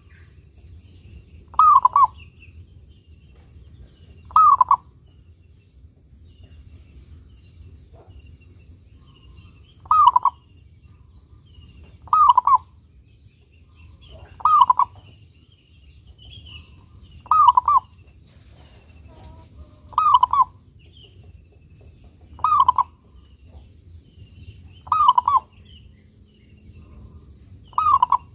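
Zebra dove (perkutut) cooing: a short, rolling coo, loud and clear, repeated ten times, mostly every two to three seconds, with one longer pause early on.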